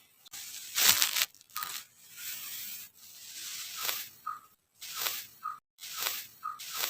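Kinetic sand being crushed and crumbled: a series of crunchy, gritty strokes, the loudest about a second in and coming faster in the second half, with short squeaky notes between the later strokes.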